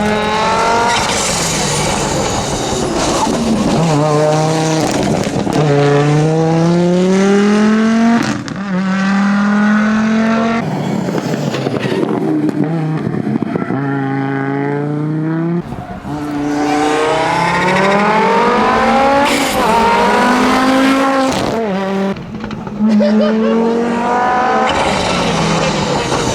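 Audi Quattro S1 rally car's engine pulling hard through the gears. The pitch climbs and drops sharply at each quick upshift. About halfway through, the pitch falls away as it lifts off and slows, then it accelerates and shifts up again.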